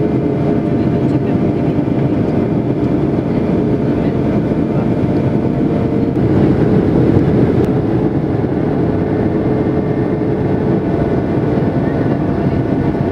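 Cabin noise of a Boeing 737-800 descending on approach with flaps extended: a steady rush of airflow and the hum of its CFM56 jet engines, with a few steady engine tones over the noise. The noise swells briefly about six to eight seconds in, and about eleven seconds in the main engine tone shifts to a higher one.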